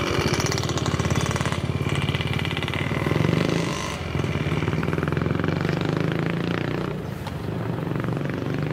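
Motorcycle engine running with a fast, even pulsing, its level dipping briefly about four and seven seconds in.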